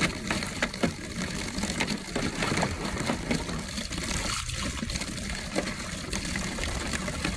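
A jet of water spraying into a shallow plastic paddling pool, a steady rushing splatter, with irregular splashes as a husky puppy paws and bites at the stream.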